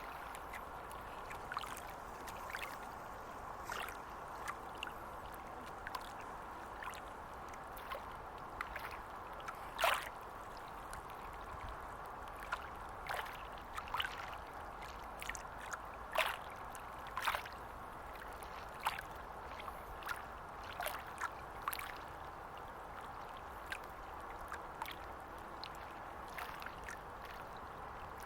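Small estuary waves lapping at the water's edge: a steady wash of moving water with irregular little plops and splashes, about one or two a second.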